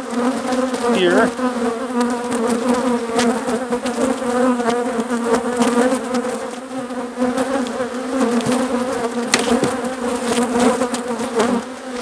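Steady buzzing hum of a strong, crowded honeybee colony, with many bees in the air around the opened hive. A few sharp clicks come from the wooden frames being handled.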